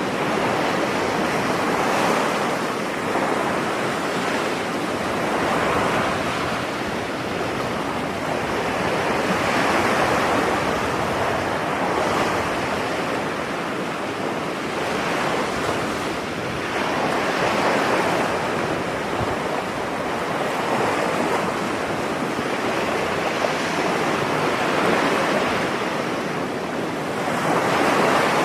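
Ocean waves washing onto a beach: a steady surf hiss that swells and eases every few seconds as waves break, with a louder swell near the end.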